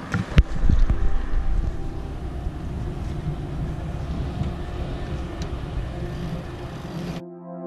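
Wind buffeting the microphone aboard a sailboat under way, a rough low rumble, with one sharp knock about half a second in. Soft background music takes over near the end.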